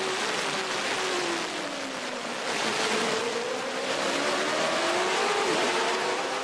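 Formula One race car engine running at high revs. Its pitch drops between about one and two seconds in as the car slows, then climbs steadily as it accelerates again.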